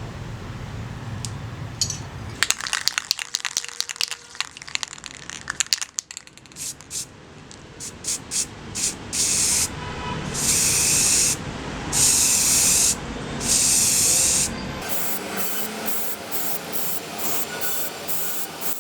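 Aerosol spray can being sprayed in bursts, three of them about a second long and the rest short and quick, after a run of rapid clicks and short hisses in the first half.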